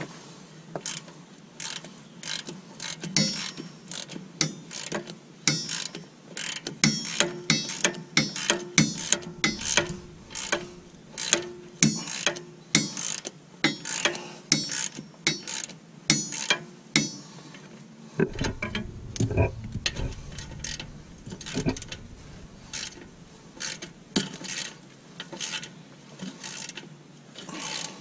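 Hand ratchet with a 15 mm socket clicking in repeated back-strokes as a bolt on the truck's front sway bar bushing bracket is worked loose, about one to two strokes a second. After about seventeen seconds the ratcheting thins out into scattered knocks.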